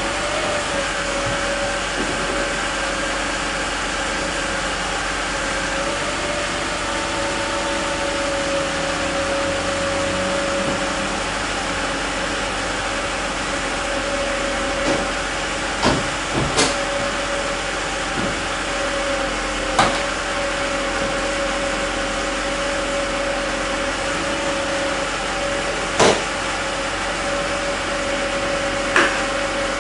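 Steady whine of the 1993 Mercedes E320 convertible's soft-top hydraulic pump running over an engine hum, as the roof system is cycled to bleed air from the hydraulics. Several sharp clicks or knocks come from about halfway through and near the end.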